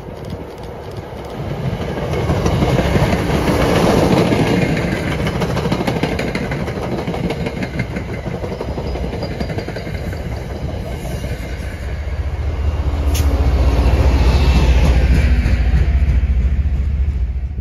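MBTA diesel commuter train passing close at speed, its wheels clacking rapidly over the rail joints. A deeper diesel engine rumble is loudest near the end, and the sound then cuts off abruptly.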